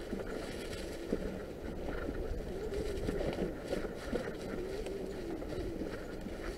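Norco Fluid FS3 full-suspension mountain bike rolling over a leaf-covered dirt trail: a wavering tyre-and-drivetrain hum, with knocks and rattles as it goes over bumps and wind rumble on the microphone.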